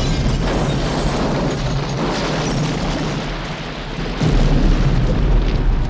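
Film sound effects of a crashed aircraft exploding and burning: a loud, continuous blast with a second deep boom swelling about four seconds in.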